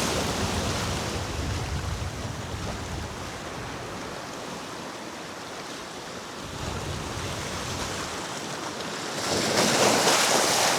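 Sea waves washing against the rocks, with wind on the microphone; a wave breaks louder near the end.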